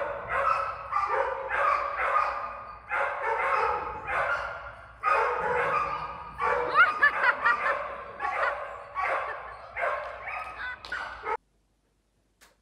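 Dog barking over and over, about one to two barks a second, then cutting off suddenly near the end.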